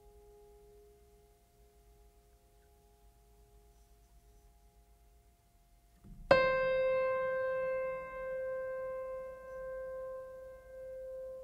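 Slow solo piano music: faint held notes fade away, then a single note is struck about six seconds in and rings on, slowly dying away.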